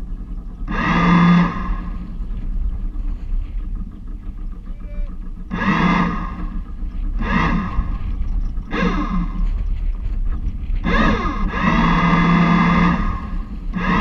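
Lewmar electric bow thruster of a small motorsailer running in about six short bursts, each a loud whine that starts and stops abruptly, over a steady low rumble.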